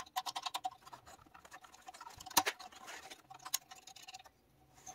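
Light clicks, ticks and scrapes of fingers handling and seating a small metal part on a Honda GX160 engine, with a sharper click about two and a half seconds in and another about a second later.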